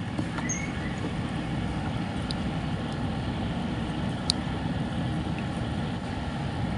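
Steady low outdoor rumble with no clear single source, and one faint short click about four seconds in.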